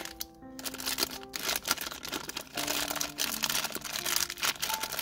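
Thin clear plastic bag crinkling and rustling as fingers work it open around a small figure, with background music playing.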